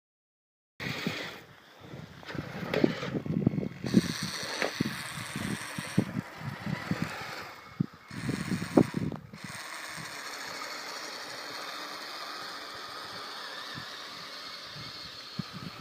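Kyosho Blizzard radio-controlled snowcat running on its electric motor, its tracks and drivetrain clattering and clicking irregularly, then settling into a steadier running sound about ten seconds in.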